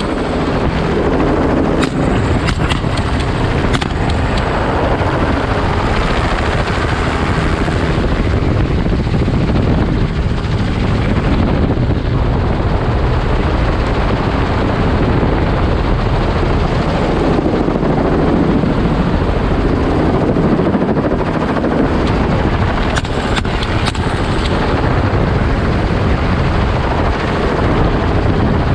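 Helicopter in low flight heard from its open doorway: steady rotor and engine noise mixed with rushing wind.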